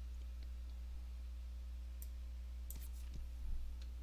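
A few faint clicks from a computer mouse and keyboard as a value is selected and changed in a spreadsheet-like form, over a steady low hum.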